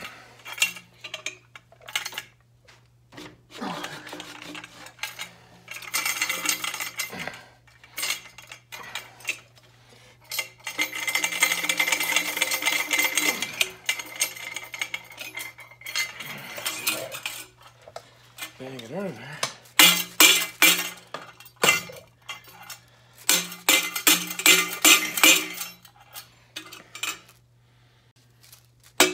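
Hand tools clinking, scraping and tapping on steel exhaust pipe as a cut-free inner section of mild-steel pipe is worked loose. A scraping stretch of about three seconds comes near the middle, and two bursts of quick metal taps come in the last third, over a faint steady low hum.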